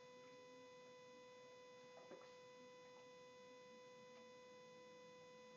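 Near silence: a faint steady high-pitched tone, with a couple of very faint soft sounds about two seconds in.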